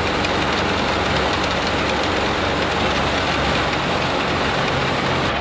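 Heavy tractor-driven threshing machine running steadily under load as straw is fed into it, with the Fiat 480 tractor's diesel engine running hard underneath.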